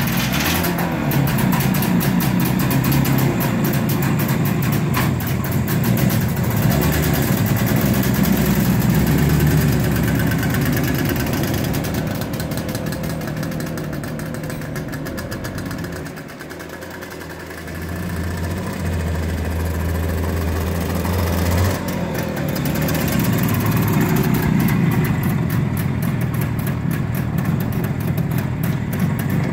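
1968 IZH Planeta motorcycle's 350cc two-stroke engine running as the sidecar rig is ridden around, revving as it pulls away. It fades briefly about two-thirds of the way through, then grows louder again as the bike comes back.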